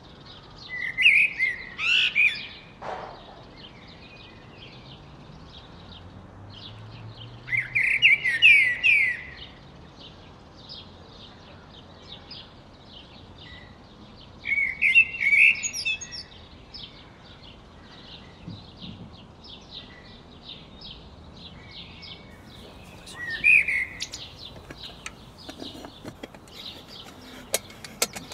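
Songbirds singing: four loud, quick song phrases a few seconds apart over a steady background of fainter chirping.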